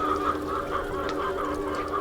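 A large flock of chickens calling all at once, a steady din of many overlapping clucks and squawks.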